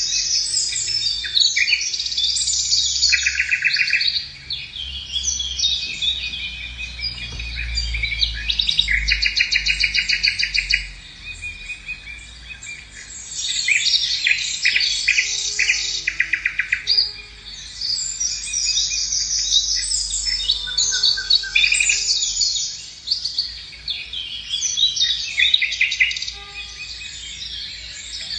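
A flock of Eurasian magpies chattering: fast, dry rattling calls in bursts of a second or two, several birds overlapping, over a low rumble.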